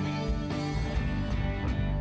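Live rock band playing an instrumental passage: electric guitars and bass guitar over drums keeping a steady beat of about two hits a second.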